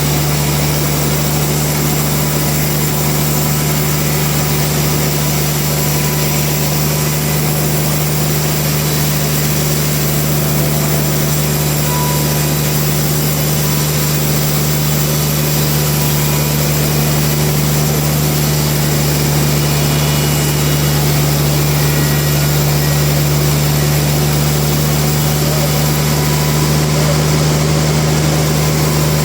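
Sawmill machinery running steadily: a constant low machine hum and drone with no change in pitch or level.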